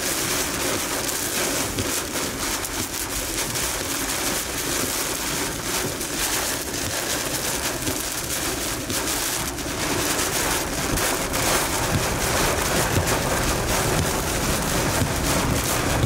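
Heavy rain mixed with hail pelting a vehicle's roof and windshield, a dense, steady patter of countless impacts heard from inside the car.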